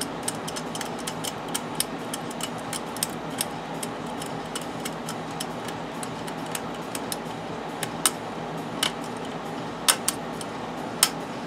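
Small screwdriver tip working the metal retaining nut at the top of a BMW K1200LT fuel sender tube, making irregular light metal ticks and clicks, with a few sharper clicks in the second half. A steady hum runs underneath.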